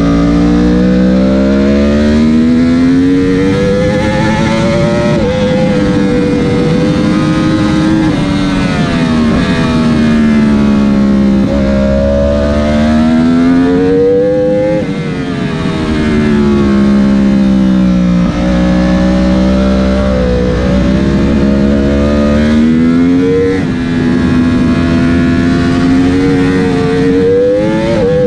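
Yamaha YZF-R1's crossplane inline-four engine heard from onboard during a race, held in second gear as the revs climb hard out of the corners and fall back into them. The revs drop sharply about halfway through and again near the end as the throttle shuts.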